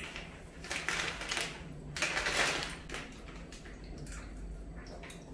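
Two short, crinkly rustling bursts from a chip bag being handled during snack eating, about a second apart, over a low steady hum.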